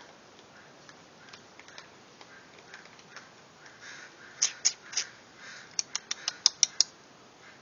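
Faint crunching of raccoons chewing dry cat food. In the second half comes a run of about a dozen sharp, loud clicks in two clusters.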